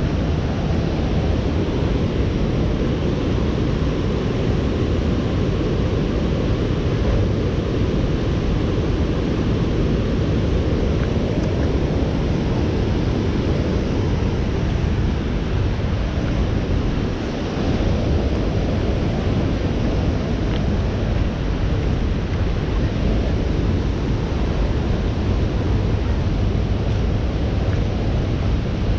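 Steady low rushing noise of wind buffeting the microphone, with faint outdoor ambience beneath it.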